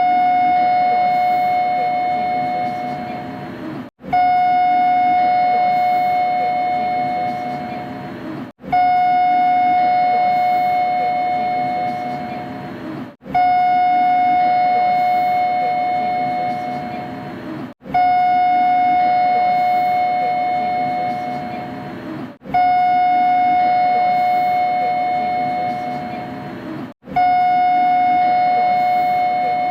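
Door chime of a Kita-Osaka Kyuko 9000 series train, a three-note electronic chime played on a loop. Each chime starts sharply and fades away over about three and a half seconds, repeating about every four and a half seconds, seven times.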